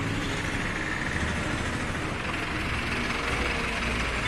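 Street traffic noise: a motor vehicle engine running, in steady street background noise.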